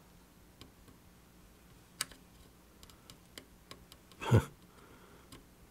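Faint scattered ticks and crackles as a soldering iron works copper desoldering braid over a circuit-board pad, wicking up solder. A short vocal sound from the worker, falling in pitch, about four seconds in is the loudest thing.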